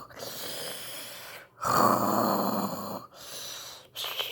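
A woman imitating snoring with slow, noisy breaths, quieter and louder in turn. The louder ones come about two seconds in and again near the end.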